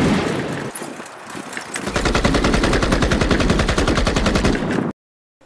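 Gunfire sound effects: a single sharp shot, then about three seconds of rapid machine-gun fire that cuts off abruptly near the end.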